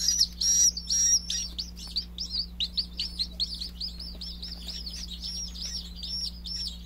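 Two-day-old Serama chicks crying: a non-stop stream of shrill, high peeps, several a second, louder and longer calls at first and near the end, quicker and softer ones in the middle. A steady low hum runs underneath.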